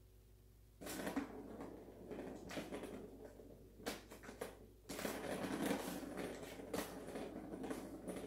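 A cat pawing at a plastic Turbo Scratcher toy: rattling and scraping with sharp clicks, starting about a second in and running in bursts with two short pauses.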